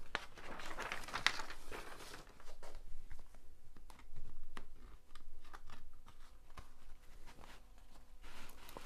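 Rustling and crinkling of the protective release paper on a diamond painting canvas as it is handled and smoothed by hand, with scattered small taps and clicks.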